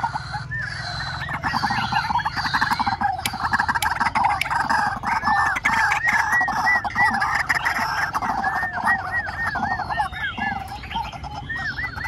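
Caged decoy white-breasted waterhen calling: a long, fast run of loud, repeated arched notes that eases off briefly near the end.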